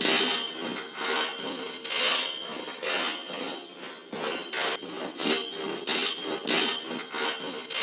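Rhythmic rasping, rubbing noise that swells and fades about once every three-quarters of a second, with a faint steady high tone underneath.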